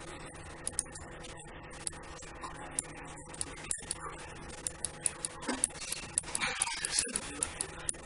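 Irregular clicking of a computer mouse and keyboard, coming faster from about five seconds in, over a faint steady hum.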